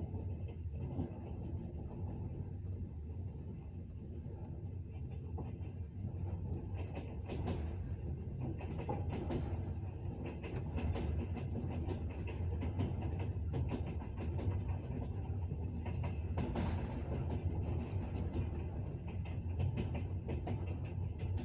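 Train wheels clattering over the rail joints, with irregular sharp clicks over a steady low rumble.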